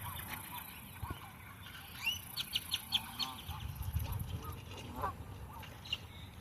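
Several birds giving short, repeated calls, with a quick run of sharp calls about two to three seconds in. A low rumble sits underneath midway through.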